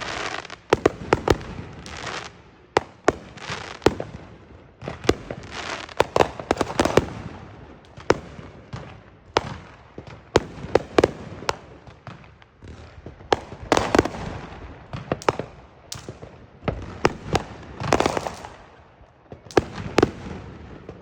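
Fireworks going off in a continuous barrage: many sharp bangs at irregular intervals, several a second at times, with crackling and hissing after the bursts.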